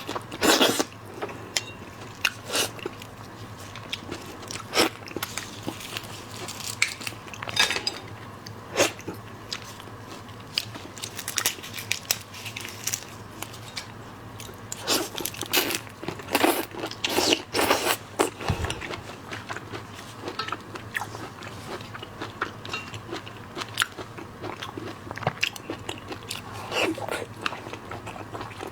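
Close-miked eating of seafood: irregular crunchy bites and chewing with sharp crackles, in louder clusters now and then.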